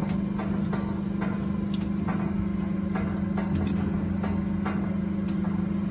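A motor running steadily, giving a constant low hum, with irregular light clicks and ticks over it.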